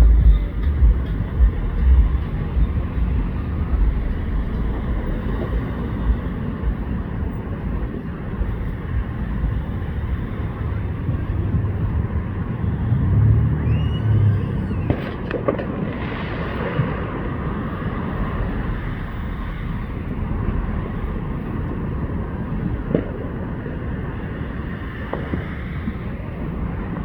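Steady outdoor city background noise with a low traffic rumble, broken by a few faint, sharp pops.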